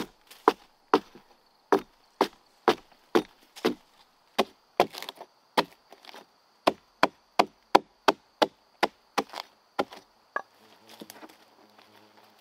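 Wood being chopped with a blade, in sharp, regular strokes about two or three a second that stop near the end.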